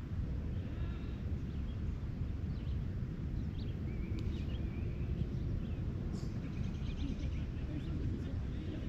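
Outdoor field ambience: a steady low rumble of wind on the microphone, with a few faint distant high calls and a short chirp in the middle.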